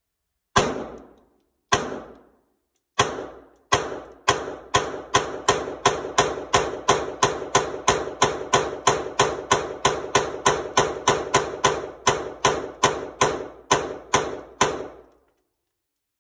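Glock 19 9mm pistol fired from a 33-round magazine: about thirty gunshots, each ringing briefly off the indoor range. Four spaced shots open the string, then the rest come evenly at close to three a second until it stops.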